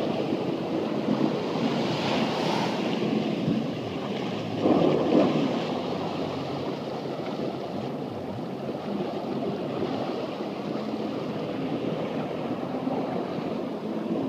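Choppy water washing and splashing with wind buffeting the microphone, under the running engine of a WaveRunner personal watercraft circling close by. A louder rush of water comes about five seconds in.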